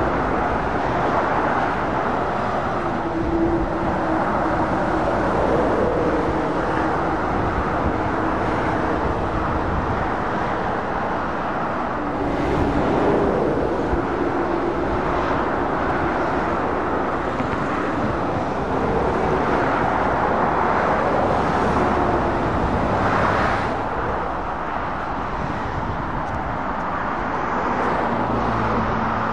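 Road traffic passing on a dual carriageway: a steady hiss of tyres on the road, with the diesel engines of passing lorries and cars coming and going.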